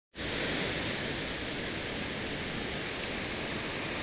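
Steady rush of river current running over a shallow riffle.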